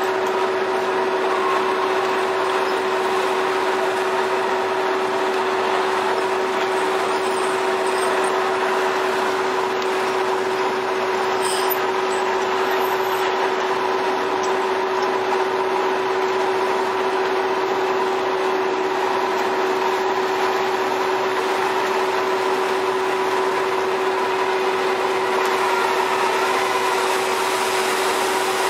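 Steady mechanical drone of a fishing vessel's engines and deck machinery, with a constant hum that holds at one pitch.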